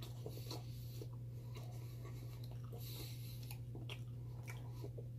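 A person chewing a mouthful of pizza, with soft wet mouth clicks and smacks scattered through, over a steady low electrical hum.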